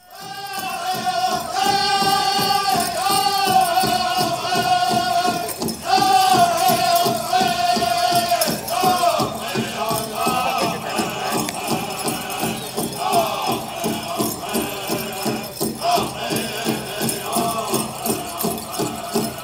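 Pow wow drum group singing in high-pitched voices over a steady big-drum beat of about two strokes a second, with a rattling, jingling sound among the beats. The high sung lines are clearest in the first half.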